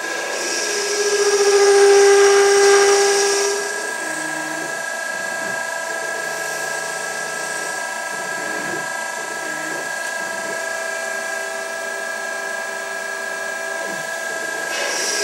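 Denford Orac CNC lathe running, its spindle turning with a steady multi-tone machine whine. It grows louder for about three seconds near the start, then settles back to the steady whine.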